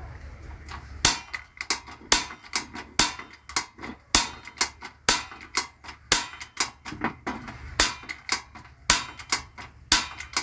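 Gas stove ignition knob turned over and over, clicking sharply about two to three times a second. The knob was jammed with grime and, freed with oil, now turns easily.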